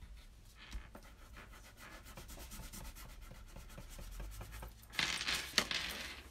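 Pen tips rubbing and scratching on paper in quick back-and-forth colouring strokes, with a louder stretch of scrubbing about five seconds in that holds one sharp click.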